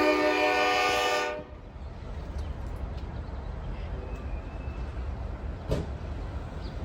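Diesel locomotive air horn holding a multi-note chord, cutting off about a second in. A low steady rumble follows, with one sharp knock near the end.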